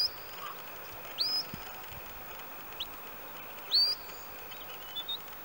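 Sheepdog handler's whistle: four short high whistled commands, each sweeping quickly upward and then held briefly, repeated every second or so to the working collie.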